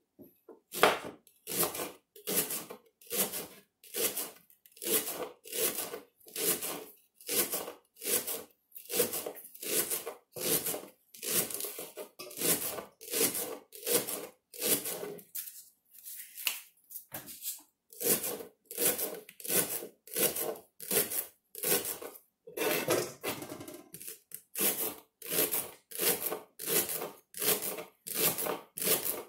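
Kitchen knife slicing through leeks onto a wooden cutting board: a steady run of crisp crunching cuts, about two a second, with a pause of about two seconds partway through.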